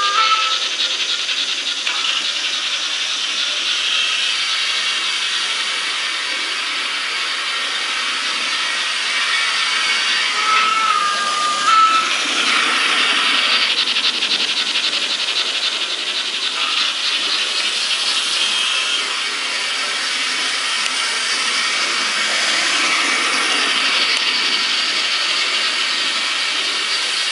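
Sound decoder of an HO-scale DRG Class 44 (BR 44) model steam locomotive playing steam hiss and chuffing through the model's small loudspeaker as it runs. A short whistle blast sounds about eleven seconds in.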